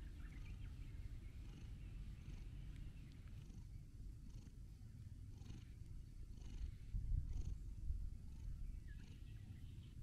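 Cat purring contentedly while being stroked under the chin, a steady low rumble that swells louder for a moment a little after the middle.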